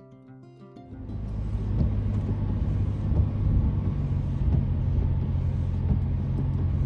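Music ends about a second in, then steady road and engine noise inside a moving vehicle, a loud low drone.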